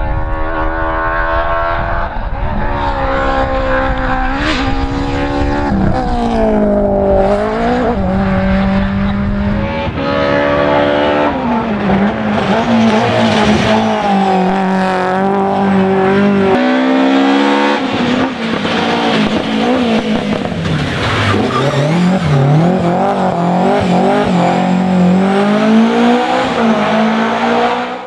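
Rally car engines revving hard and changing gear, the pitch climbing and dropping again and again as the cars pass; from about ten seconds in it is a BMW M3 E30 rally car's four-cylinder engine.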